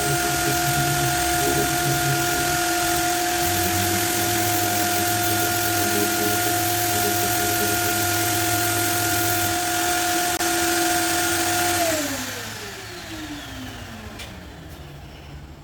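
Carts & Millie Prepmate 2 brushless random orbital sander running at a steady, even whine over a hiss. About twelve seconds in it is switched off, and its pitch falls as it winds down.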